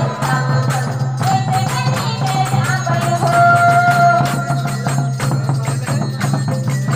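Jhumur folk music: a held, sung melody over steady beats of a barrel-shaped hand drum.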